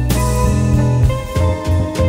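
Background music with guitar, bass and drums.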